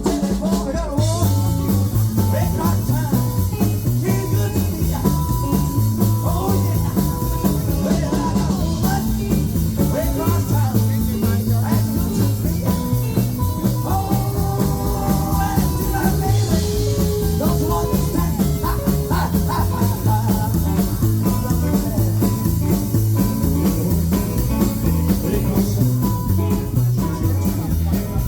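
Live rockabilly band playing an instrumental break with a steady beat, held lead notes over drums and bass, with no singing.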